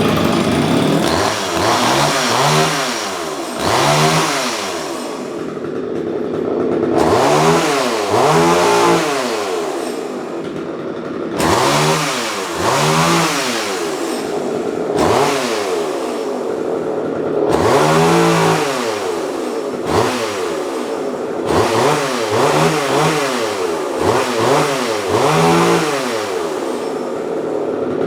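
Vintage Homelite Super EZ Automatic two-stroke chainsaw running, revved again and again in short throttle blips that rise in pitch and drop back to idle between.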